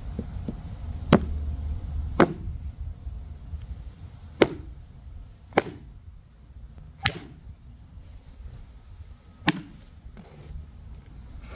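A hatchet's wooden handle is struck butt-end down onto a wooden board, giving about six sharp knocks one to two seconds apart. This jars the steel head further down onto the handle to seat it.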